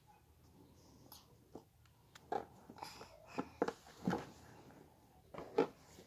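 Handling noise: a few soft, short knocks and rubs at irregular spacing, the loudest about four seconds in, after a quiet start.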